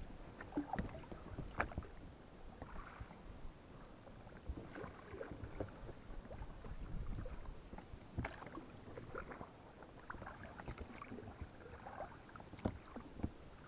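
Rowing an inflatable boat: oars dipping and swishing through the water in irregular strokes, with a few sharp knocks from the oars.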